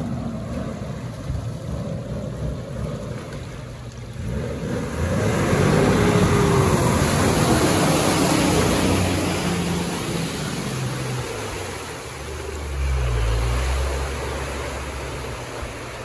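Off-road vehicle engine working under load, its pitch shifting up and down, with a broad rushing noise that swells about a third of the way in and fades after a few seconds. The engine rises again near the end.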